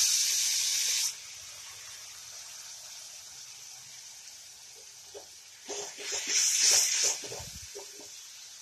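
Wet ground mustard paste sizzling as it hits hot oil and spices in a kadhai: a loud sizzle for about a second, then a steady quieter sizzle. About six seconds in, a second loud burst of sizzling with a few scrapes of the perforated ladle against the pan as the paste is stirred.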